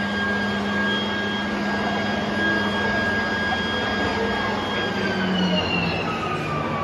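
Steady machine hum with a constant high whine from electric motors. About five seconds in, the whine slides down in pitch.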